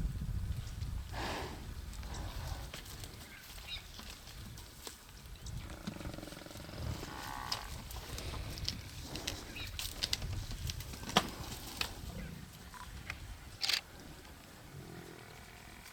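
Lions growling and snarling at a buffalo kill while feeding, in rough calls that come and go. A few sharp cracks stand out over a steady low rumble.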